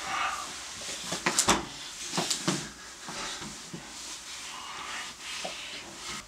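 Clothing rustling as two people embrace and kiss, with a few sharp smacks and knocks clustered about one second in and again about two seconds in.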